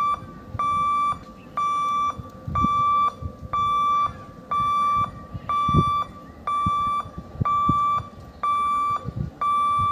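Level-crossing warning beeper sounding a steady high electronic beep about once a second, each beep a little over half a second long, the warning given while the gate is closed for an approaching train.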